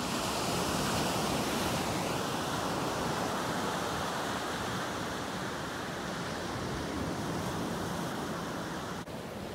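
Ocean surf breaking and washing up a beach, a steady rush of noise from the waves.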